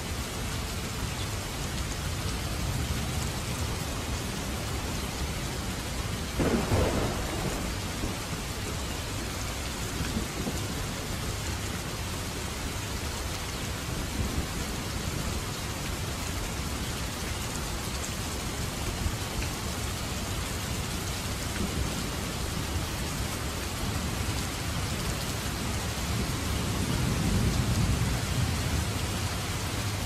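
Steady rain falling and splashing on wet ground. About six seconds in there is a sudden loud clap of thunder that fades over a second or two, and a low thunder rumble swells near the end.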